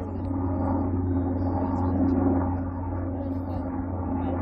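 A steady low hum made of two held tones under a faint noisy background, with no clear events.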